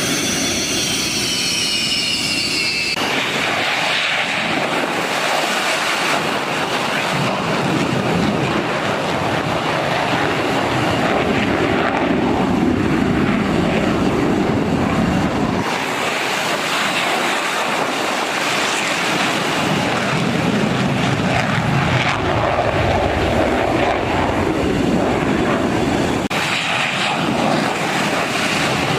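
Military display aircraft flying past with a loud engine roar. A high turbine whine falls in pitch over the first few seconds as one aircraft passes, then the roar changes abruptly at a few points.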